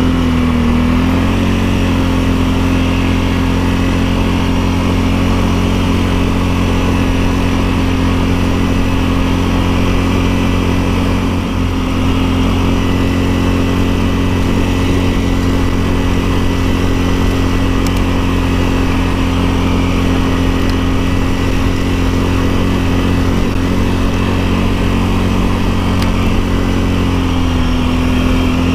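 ATV engine running at a steady, nearly constant speed while riding a trail, with a small drop in engine speed about a second in.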